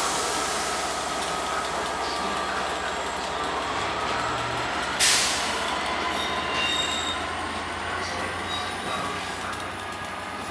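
Class 67 diesel locomotive 67016, its two-stroke V12 engine running steadily as it hauls coaches slowly away, with thin squealing tones from the wheels on the track. A short sharp hiss of air comes about halfway through.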